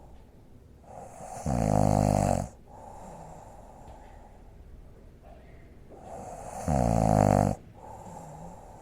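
A woman snoring: two loud, rasping snores about five seconds apart, with quieter breathing between them.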